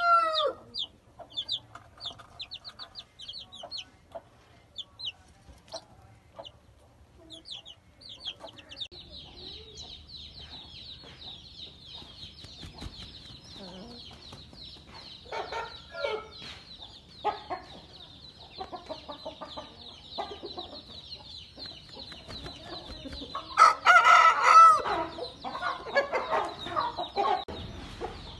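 Young chicks peeping in quick, repeated high cheeps. Then a game rooster calls, and near the end it gives a loud crow, the loudest sound here, over a steady high-pitched drone.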